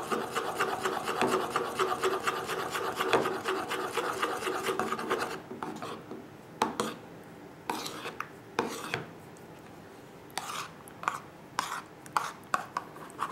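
Metal spoon stirring a thick, lumpy conditioner-and-olive-oil mixture in a plastic bowl, scraping along the bowl in quick continuous strokes. About five seconds in the stirring slows to separate single scrapes.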